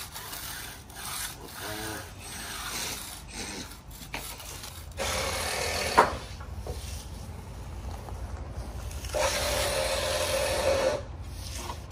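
A resin hand float rubbing across the wet concrete surface of a countertop as it is finished. Two longer, louder strokes come about five and nine seconds in, with a sharp tap at the end of the first.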